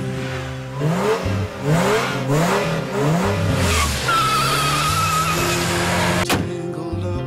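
Car engine revving up in a run of short rising sweeps, then tyres squealing in a wavering high tone, with a sharp click near the end, over background music.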